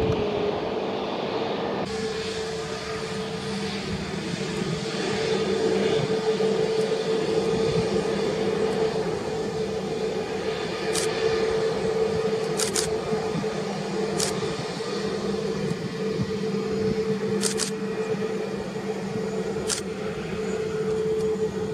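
Airbus A320neo's Pratt & Whitney PW1100G geared turbofans running at taxi power: a steady whine over a low rumble. A few short ticks come in the second half.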